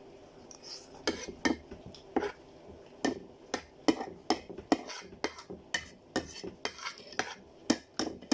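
Cutlery clinking and scraping against a plate while noodles are eaten: short sharp taps at about two a second, irregularly spaced.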